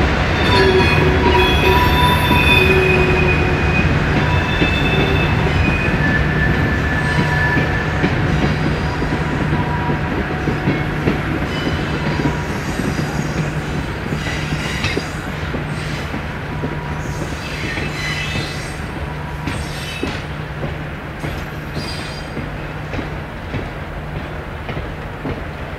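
A slow-moving train rolling past on a curve, its steel wheels squealing against the rails in high, wavering tones, loudest in the first half, over a steady low hum and wheel rumble. The sound slowly fades toward the end.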